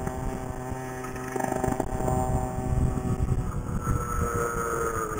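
49cc two-stroke engine of a stand-up scooter running under way. From about four seconds in its pitch starts to fall as the revs come down off the throttle.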